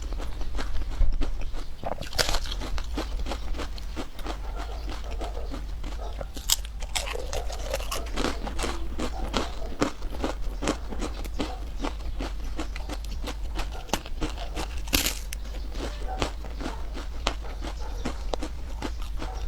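Close-up eating sounds: a person biting and chewing food with crunchy, wet mouth clicks and smacks, repeating continuously.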